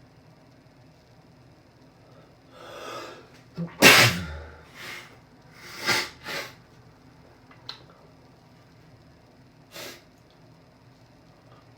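A man sneezing from allergies: a drawn-in breath about two and a half seconds in, then one loud, explosive sneeze, followed by a few shorter, quieter bursts of breath.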